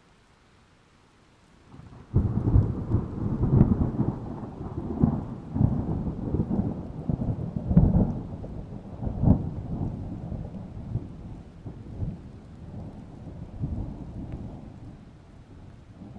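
A low, irregular rumble with crackling, starting suddenly about two seconds in, swelling in several peaks and dying away toward the end.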